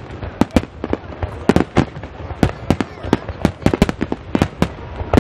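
Volley of aerial firework shells bursting: a fast, irregular run of sharp bangs, several a second, overlapping one another.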